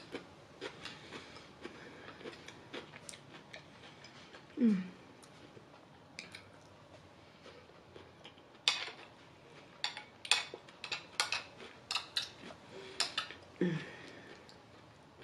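Metal spoon scraping and clicking against a plate while food is scooped up, with sharp clicks coming thick and fast in the second half. A couple of brief low hums of the voice, falling in pitch, about a third of the way in and near the end.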